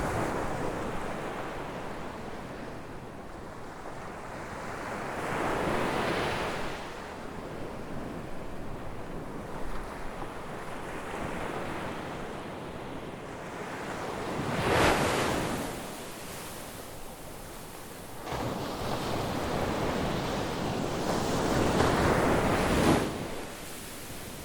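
Sea waves breaking and washing up the shore, swelling and fading in slow surges, the loudest crash about fifteen seconds in and a long wash near the end. Some wind rumble on the microphone.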